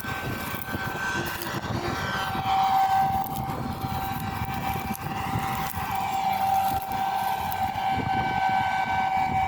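Combine harvester running at working speed: a steady high-pitched whine over the low rumble of the engine and machinery.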